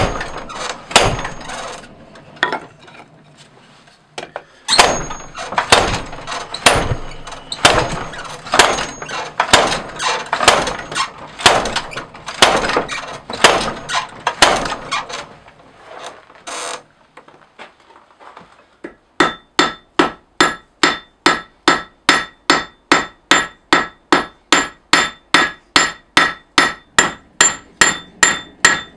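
Hot steel being hand-forged on an anvil. First comes a long run of irregular heavy blows on a handled top tool set on the red-hot blade. After a short pause, a hammer strikes the blade on the anvil in a fast, even rhythm of about two and a half blows a second, each blow ringing.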